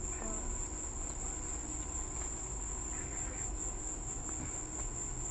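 Night insects trilling in one steady, high-pitched drone, over a low rumble.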